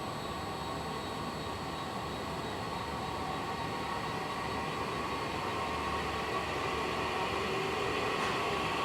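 Variable-speed electric motor of a SuperTeck STG-450 cylindrical grinder, the drive for outside-diameter grinding, whirring steadily as it is ramped up toward its top speed of about 3,200 rpm. It grows gradually louder as it speeds up.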